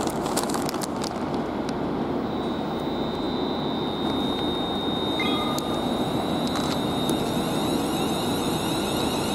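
Class 350 Desiro electric multiple unit standing at a platform with its equipment running as a steady din, and a thin high whine setting in a couple of seconds in. There is a brief tone about halfway through. Faint rising whines from the traction equipment come near the end as the unit gets ready to pull away.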